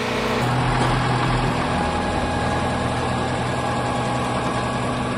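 Engine powering an old belt-driven Frick circular sawmill, running steadily with an even hum.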